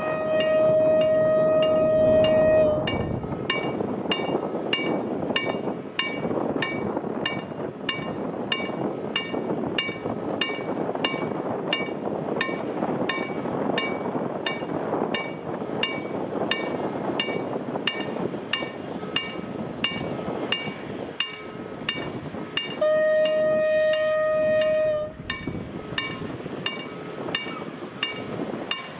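Freight locomotive horn sounding two long single-tone blasts, one right at the start and one about 23 seconds in, each lasting about two and a half seconds, over the steady rumble of the approaching freight train. A steady, even ticking of about two clicks a second runs underneath.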